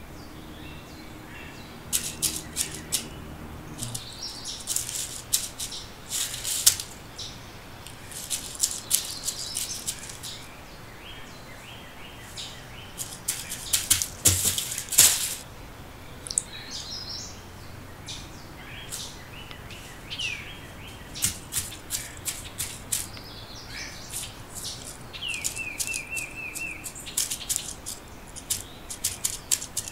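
Dry crackling and rustling in short bursts, as of feet moving through dry leaves and pine needles, with birds chirping in the background, including a quick run of chirps a few seconds before the end.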